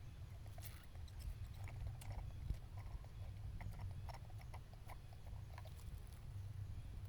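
Small clicks and crunches of a baby monkey chewing food, over a steady low rumble, with one sharper knock about two and a half seconds in.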